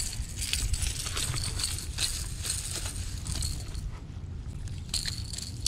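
Light, irregular clicks and rustles of a spinning reel being wound and of footsteps on a grassy, rocky bank while a hooked fish is brought in, over a steady low rumble.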